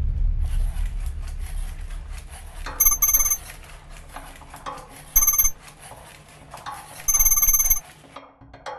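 Three short bursts of trilling electronic beeps, like a phone ringing, over a low music drone that fades away near the end.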